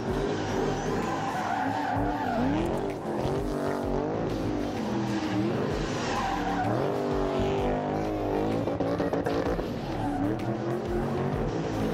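Drift car's engine revving up and down again and again, its pitch rising and falling every second or two, with tyres screeching as it slides sideways around barrels.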